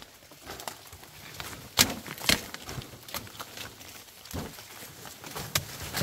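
Several sharp knocks at uneven intervals, with fainter ticks and rustling between them.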